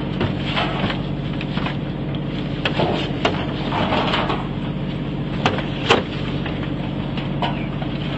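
A boat's engine running steadily, with knocks and scrapes as crabs are tipped from a net pot onto a stainless steel sorting tray and handled there; the sharpest two knocks come a little past the middle.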